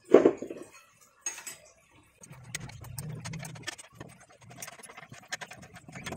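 A sharp metal knock, then a run of irregular clicks and ticks over a low rumble as a socket wrench works the 17 mm top nut of a Toyota Avanza front strut held in a coil spring compressor.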